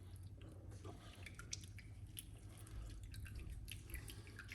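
Half a lemon squeezed by hand over a cup of water: faint squishing of the fruit and scattered drips of juice falling into the cup.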